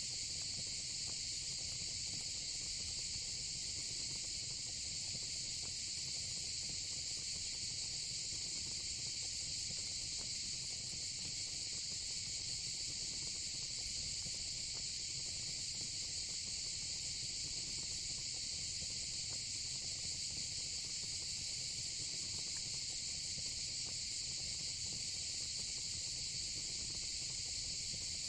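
A steady, unbroken chorus of insects chirring, with a low rumble of fire and a few faint crackles underneath.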